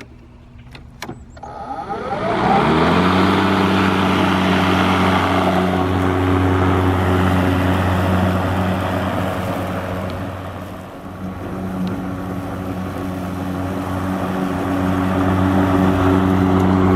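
Kobalt 80-volt cordless electric lawnmower: a couple of clicks, then the motor and blade spin up with a rising whine over about a second and settle into a steady hum. The hum dips briefly past the middle, then comes back up.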